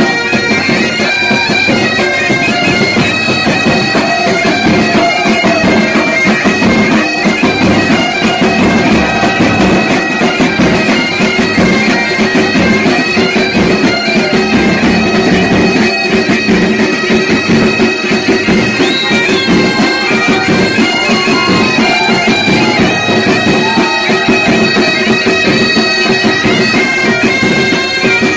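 Bagpipes playing a tune over steady drones, loud and continuous.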